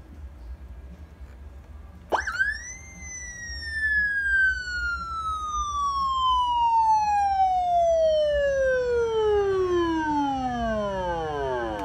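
Electronic police-style '113' siren: a low hum for about two seconds, then the tone sweeps sharply up to a high pitch and slides slowly down over about nine seconds.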